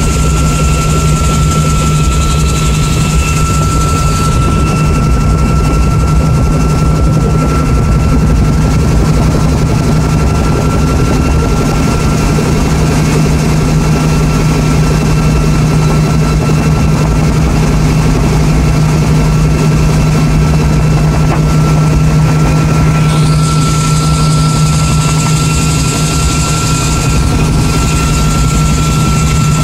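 Bell 47 helicopter in flight, heard from inside its bubble cabin: its engine and rotor make a loud, steady hum with a thin, steady high whine. A high hiss drops away about four seconds in and comes back after about twenty-three seconds.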